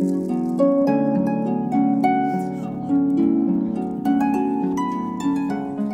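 Solo harp music: a gentle melody of plucked, ringing notes over lower held notes.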